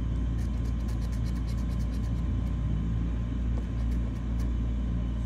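Steady low background rumble with an even electrical hum. In the first two seconds or so there is a run of faint, quick light ticks, about five a second.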